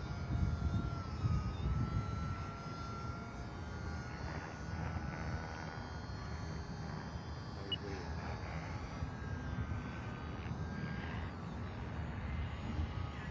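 Distant E-flite J-3 Cub radio-control model plane passing overhead: the thin, slightly wavering whine of its electric motor and propeller, over a low rumbling noise.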